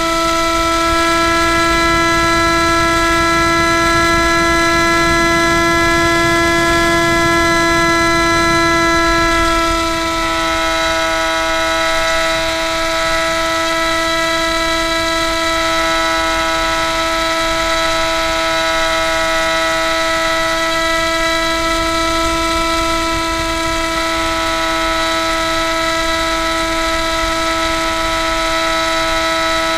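The Spyhawk RC plane's electric motor and propeller whine at a steady pitch during flight, heard through the onboard keychain camera's microphone. Wind rumble runs under it and is heavier in the first ten seconds.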